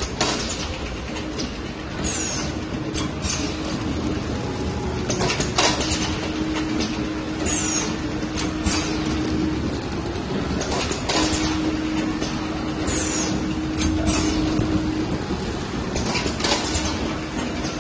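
Paper straw packaging machine running: a steady mechanical noise with a low hum that switches on and off for several seconds at a time. Sharp clacks recur every couple of seconds, some followed by a short hiss, as the pneumatic cylinders and conveyor stations cycle.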